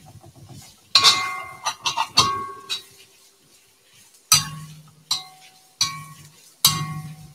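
Spatula striking a cast iron wok during stir-frying: about seven sharp metallic clanks, each ringing briefly, at irregular intervals with short gaps between.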